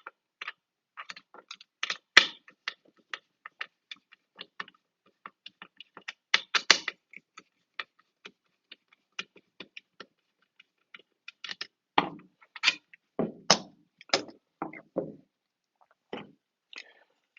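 Irregular clicks, taps and knocks of old pole clamps and small hardware being handled and set down on a hard surface, with a denser run of louder knocks about twelve to fifteen seconds in.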